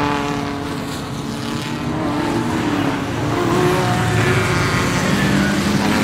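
Racing car engines running, several engine tones overlapping and sliding slightly in pitch over a noisy background. It grows louder about three and a half seconds in.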